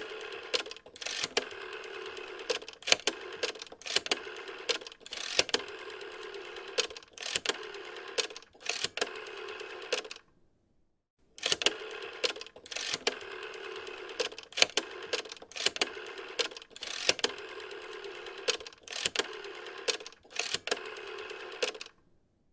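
Rotary telephone dial being wound and released again and again, each spin-back a whirr carrying a quick train of pulse clicks, with a louder click where each turn starts and ends. The dialing comes in two long runs with a pause of about a second between them.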